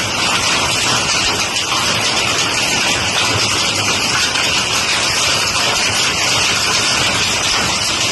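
Heavy rain pouring down: a steady, dense hiss with no letup.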